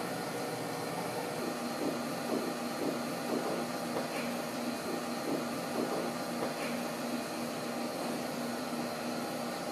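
Steady electrical machine hum from laboratory analysis equipment, with a low drone that comes in about a second and a half in and holds.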